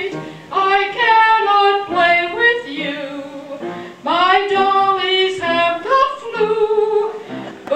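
Music: a female voice singing a song in held, sustained notes.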